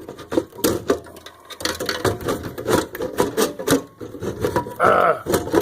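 Rapid, irregular clicking and knocking of hand tools against metal and plastic parts as a retaining clip is pried and worked loose from a traffic light controller's electronics.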